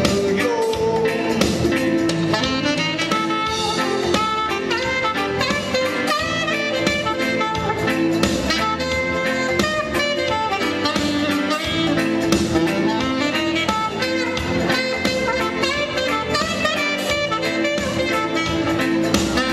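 Saxophone playing a melody line over a keyboard band backing with a steady beat.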